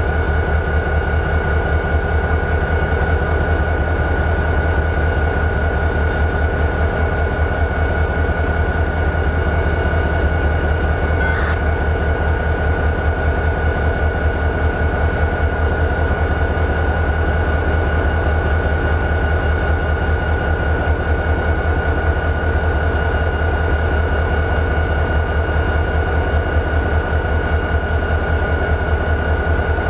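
EMD 645 diesel engine of a CSX GP40-2 locomotive idling steadily: a deep, even, rapid throb with a steady high whine over it.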